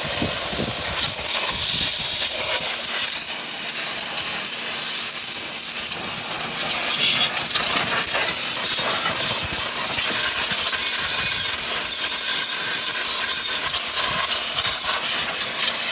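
Loud, steady hiss of a high-pressure jet with a faint steady motor hum beneath, dipping briefly about six seconds in.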